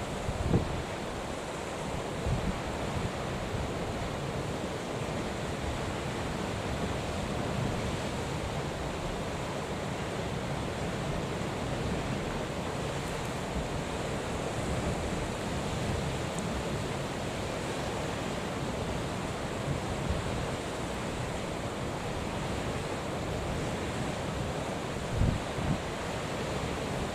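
Steady rushing of wind and rough sea surf, with a few brief low buffets of wind on the microphone, about half a second in and again near the end.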